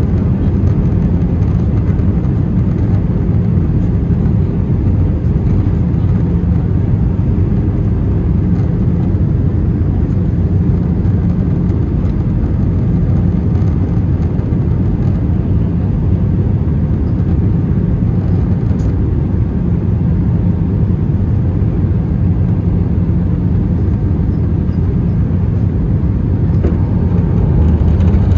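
Steady cabin roar of an Airbus A320-214 in flight: its CFM56 turbofan engines and the airflow, heard from a passenger window seat. It is a deep, even rumble with a faint whine on top, swelling slightly at the very end.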